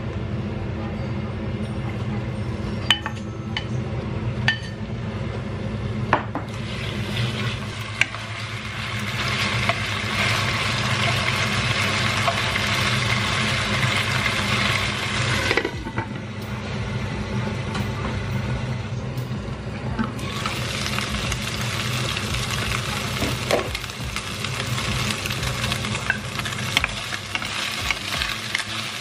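Marinated chicken pieces sizzling in hot oil in a nonstick pot, stirred with a wooden spatula. A few sharp knocks come in the first eight seconds; the sizzle swells about six seconds in, eases for a few seconds in the middle, then rises again.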